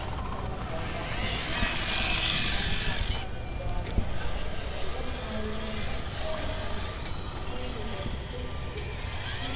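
Outdoor background of distant, indistinct voices over a steady low rumble, with a hiss rising from about a second in and stopping about three seconds in.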